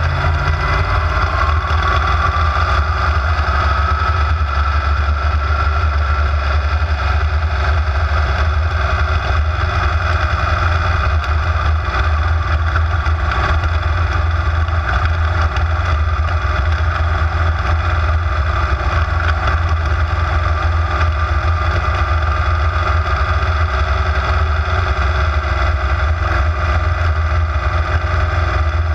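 Supermodified race car's big-block Chevrolet V8 running at speed around an oval, heard on board from the open cockpit. The engine note is loud and steady, rising slightly in the first few seconds and then holding.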